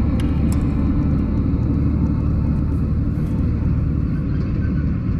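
Steady low engine rumble from a nearby heavy vehicle or machine.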